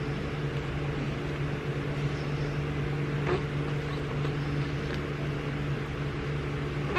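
A small electric motor running with a steady hum and hiss. A brief soft vocal sound comes about three seconds in.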